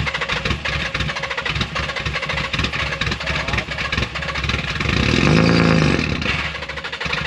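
Turbocharged Nissan 350Z's V6 on its first start after a clutch and flywheel replacement, cranking and running with a fast, rough pulsing. About five seconds in it rises briefly in pitch and level, then drops back.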